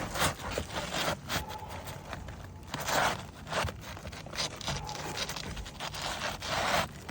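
Roof shingle scraping and rustling as it is worked back into place, in several rough strokes with small clicks between them; the strongest strokes come about three seconds in and near the end.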